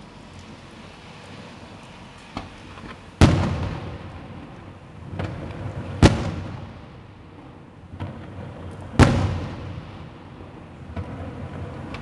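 Aerial firework shells bursting: three loud booms about three seconds apart, each followed by a long rolling echo, with fainter pops between. Near the end a fast run of small crackling pops starts.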